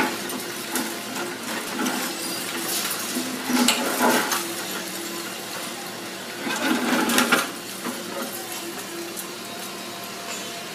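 Doosan hydraulic excavator running while it breaks up a brick-and-concrete building, with rubble crashing and clattering down in two bursts, about three and a half seconds in and again around seven seconds in.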